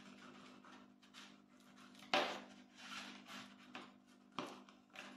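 Knife blade cutting and scraping through the crisp baked pastry edge of a cialdone around its metal tube, giving a string of faint crunches and scrapes, the sharpest about two seconds in.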